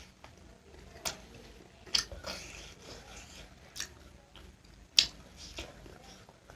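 Close-up eating sounds: chewing and biting, with about five sharp, wet clicks spread through the stretch.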